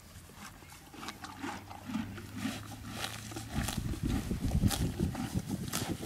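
Horse grazing close up: sharp tearing of grass and crunching as it chews, getting louder and denser about three and a half seconds in.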